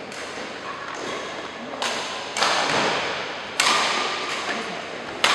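Badminton rackets striking shuttlecocks: four sharp hits, two close together near the middle, one a second later and one near the end, each ringing out in the echo of a large hall.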